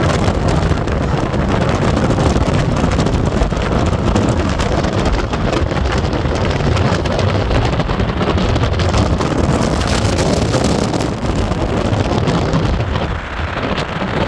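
Steady low vehicle rumble with wind noise on the microphone.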